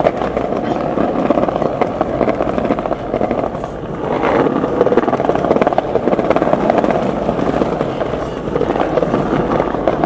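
Skateboard wheels rolling over pavement: a steady, rough rumble that dips briefly and picks up again a few seconds in.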